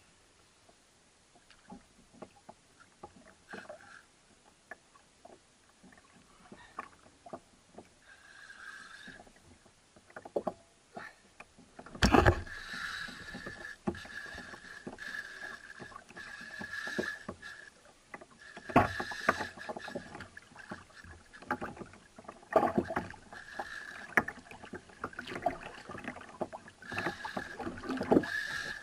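Spinning reel on a jigging rod buzzing while a hooked amberjack is fought from a kayak, mixed with sharp knocks. The first dozen seconds hold only faint ticks and knocks; the buzz sets in at about 12 seconds, opened by a loud knock, and keeps going with short breaks.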